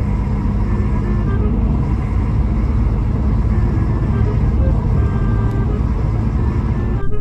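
A car driving at speed, its road and engine noise heard from inside the cabin as a steady, loud rumble. It cuts off abruptly near the end.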